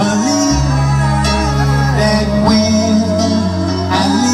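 Live pop-rock band in concert: held bass notes that change about every two seconds under guitar, with a man singing over them.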